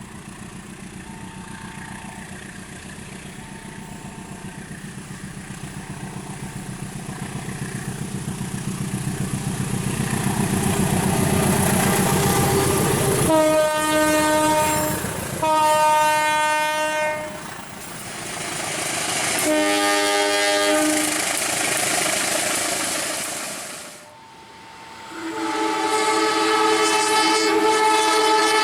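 A train approaching, its rumble growing steadily louder for about twelve seconds. Then the locomotive's horn sounds a chord in three blasts of a second and a half to two seconds each, and a long blast begins near the end. This is the Indonesian railway horn warning signal, Semboyan 35.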